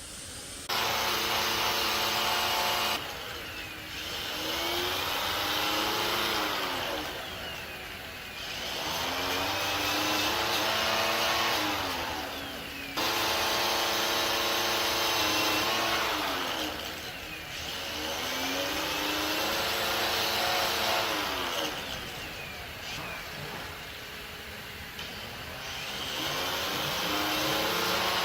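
Electric power tool's motor running at full speed, its pitch repeatedly sagging and recovering as it is pressed into the work and eased off. It cuts in abruptly about a second in and again about halfway through.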